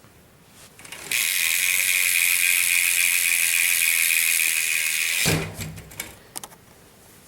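BMX rear hub freewheeling, its ratchet pawls clicking so fast that they blend into a loud, high buzz. The buzz starts sharply about a second in, runs about four seconds and cuts off with a short knock.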